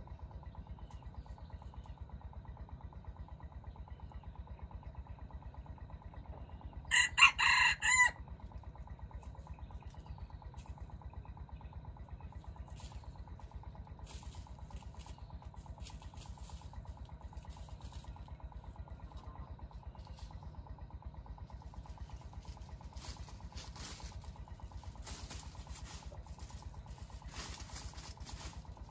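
A junglefowl rooster, the decoy cock used as trap bait, crows once about seven seconds in, a short crow about a second long. A steady low hum runs underneath, with faint scattered clicking and rustling in the second half.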